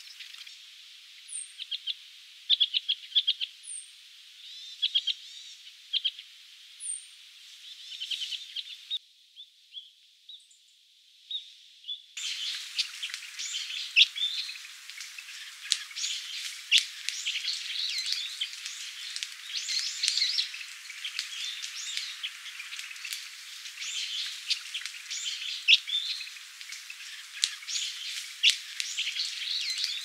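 Asian rosy finches calling in short bursts of rapid notes. About twelve seconds in, this gives way to a flock of Japanese grosbeaks calling continuously, many short calls overlapping.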